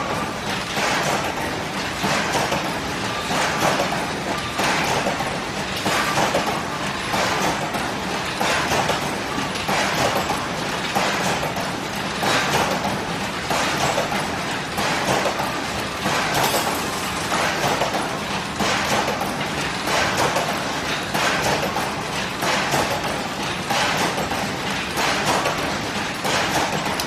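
Hinge joint field fence machine running: a steady mechanical clatter with regular metallic clacks about once a second as the steel wire mesh is woven.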